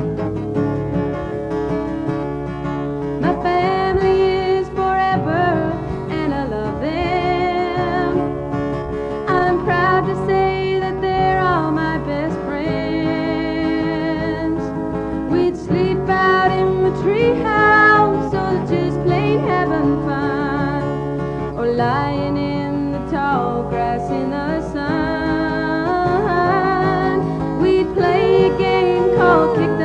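Background music: a country song, a singer with a wavering held melody over guitar accompaniment.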